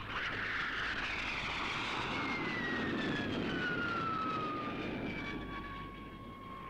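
Jet flight sound effect for the Ultra Hawk 1 fighter: a rushing jet noise with a high whine that falls steadily in pitch through the first few seconds, then holds level and a little quieter toward the end.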